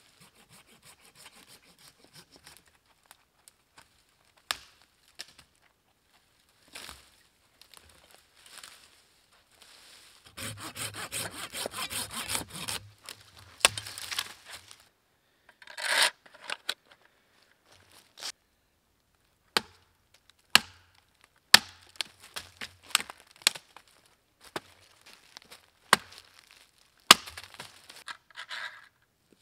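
Hand saw cutting through a thin green sapling in quick back-and-forth strokes for about two seconds, about ten seconds in. Later come scattered sharp cracks and snaps of wood.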